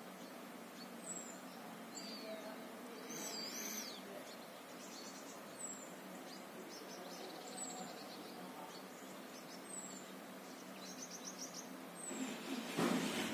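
Birds singing at dawn: a short, high falling call repeated about every two seconds, with warbled phrases and quick trills from other birds over a steady low background hum. Near the end a louder rushing noise sets in.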